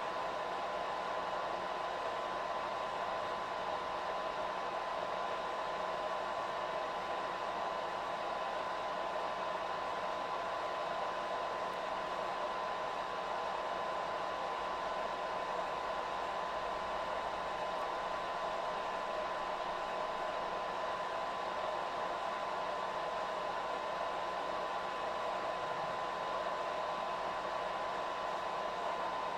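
Steady whirring of a disco lighting effects projector's cooling fan and motor, with a constant whine over it.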